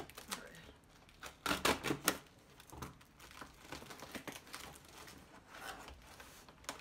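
A tape-wrapped cardboard parcel being cut and pulled open with scissors and by hand: crinkling, tearing and sharp clicks of packing tape and cardboard, with a dense cluster of snaps about one and a half to two seconds in.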